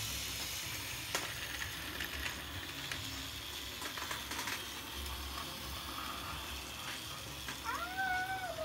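Vintage Lego 12V trains and the Lego monorail running on the layout: a steady hiss of motors and wheels with scattered clicks. A brief high voice rises and falls near the end.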